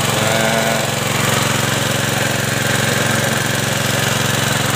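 Small diesel engine driving a water pump, running steadily as it draws water out of a spring pool.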